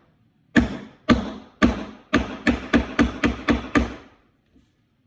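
A hammer driving a nail into a wooden birdhouse panel: about ten sharp strikes, a few spaced ones and then a quicker run, stopping about four seconds in as the nail goes home.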